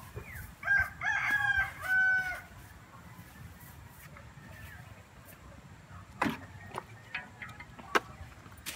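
A rooster crows, a pitched call of about two seconds starting just under a second in. Later come a few sharp knocks, the loudest near the end.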